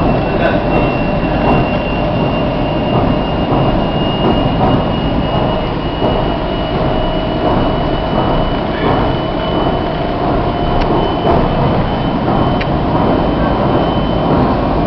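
Cabin noise of a CSR electric multiple unit running at about 83 km/h: a steady rumble of wheels on rail with a thin high whine throughout, and a lower whine that rises in pitch about halfway through and fades a few seconds later.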